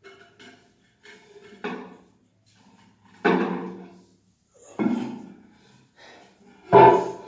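Four hard knocks and clunks of parts being handled and set down while a toilet cistern's flush mechanism is taken apart, each fading quickly, the loudest near the end.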